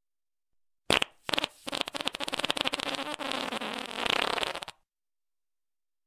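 Fart sound-effect ringtone: a short sharp blast about a second in, a brief second one, then a long fluttering fart lasting about three seconds that stops suddenly.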